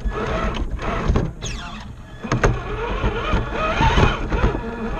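Close-up sound of an RC scale rock crawler's electric motor and geartrain, a whine that rises and falls in pitch with the throttle. Sharp knocks come from the truck working over the course, a clear one about two and a half seconds in.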